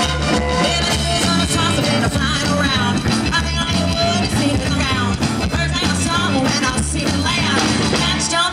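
Rockabilly music: a band playing a steady, rhythmic bass line under electric guitar, with singing over it.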